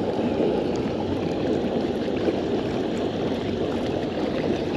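A large party boat passing close at speed: a steady rush of water and engine noise.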